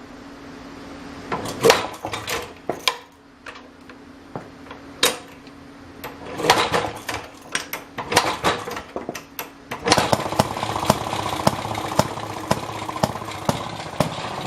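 Maytag Model 92 single-cylinder gas engine on a washing machine being started: several sharp knocks and brief catches over the first seconds, then about ten seconds in it fires and keeps running with a rapid, even beat.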